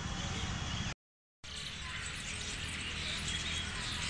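Outdoor park ambience: a steady low rumble of background noise with faint bird chirps, broken by a brief total silence about a second in.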